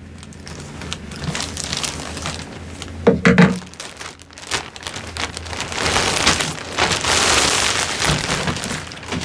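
A plastic courier mailer being cut and pulled open, then a bag in a clear plastic wrapper drawn out of it: continuous crinkling and rustling of plastic with small clicks, loudest about six to eight seconds in.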